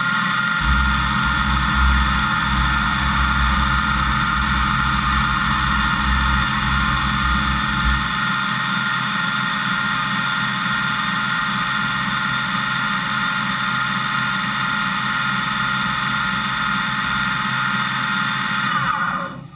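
Fadal VMC5020A vertical machining center running its spindle with flood coolant spraying, the tool turning in air without cutting. A deep rumble underlies the first eight seconds or so. Near the end the whine falls in pitch as the spindle winds down, and the sound cuts off.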